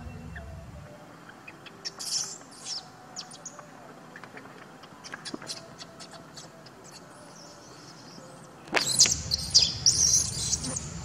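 Baby macaque squealing in short, high-pitched squeaks. The squeaks come scattered at first, then grow much louder and more frequent about two seconds before the end, over a low rumbling noise.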